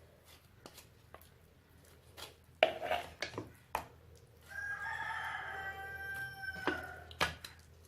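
A few short knocks and clicks from a knife cutting slits into a raw chicken, then a rooster crows once, a single long crow of about two and a half seconds.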